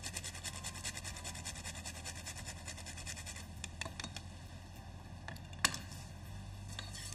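Whole nutmeg being grated on a fine hand grater, many small scraping strokes, then one sharp click near the end.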